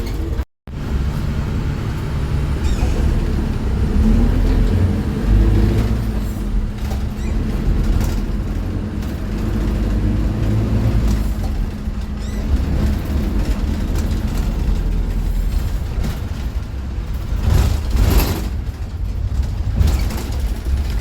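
Small city bus running on the road, a steady low engine and road rumble from inside the bus. A brief hiss comes about three-quarters of the way through.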